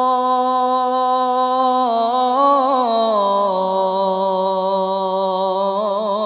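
A male muezzin's voice chanting the dawn call to prayer (adhan), drawing out 'Allahu akbar' in one long sung phrase: a held note, ornamented turns about two seconds in, then a lower held note from about three seconds in, wavering slightly near the end.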